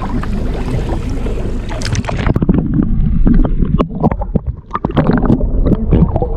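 Wind buffeting the microphone aboard a small fishing boat at sea. About two seconds in the rush drops back and a run of knocks and clatter follows.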